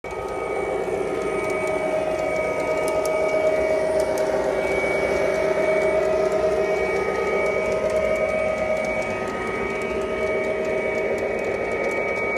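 Model train running on its track: a steady electric motor whine, with the rumble and occasional clicks of a string of coal hopper cars rolling past.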